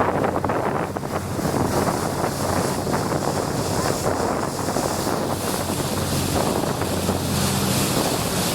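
Wind buffeting the microphone over water rushing past a sailboat's hull, with a low steady hum joining in over the last few seconds.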